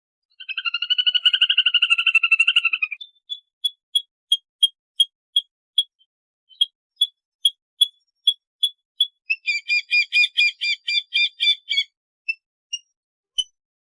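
Lesser whistling ducks calling. A fast run of whistled notes comes first, then single whistles at about three a second, then a burst of rapid chattering notes, and a few spaced single whistles near the end.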